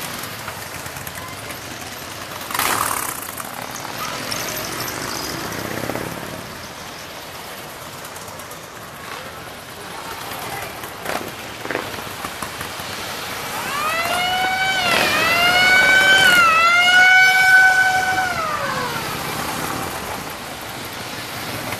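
Harley-Davidson motorcycles riding past in a parade. About two-thirds of the way in, a wailing siren-like tone rises, dips twice and falls away over about five seconds, louder than anything else.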